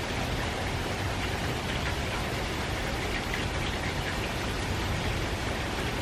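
Steady, gentle rain falling on foliage and surfaces, an even patter from the outer bands of a distant typhoon.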